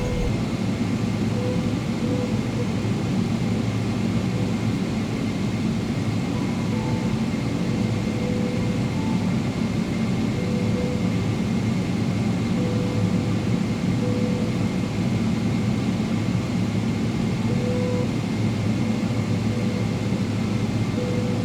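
Steady cabin noise inside a Boeing 777-300ER, its GE90 engines running at low power as it taxis after landing, with a constant high whine over a low rumble.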